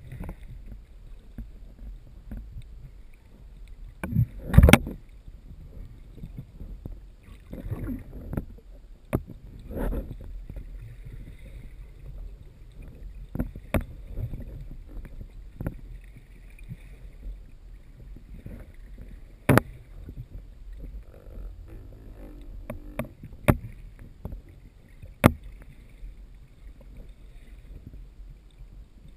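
Muffled underwater sound heard through a GoPro's waterproof housing: a steady low rumble of water, with scattered sharp knocks and clicks of handling. The loudest knock comes about four and a half seconds in.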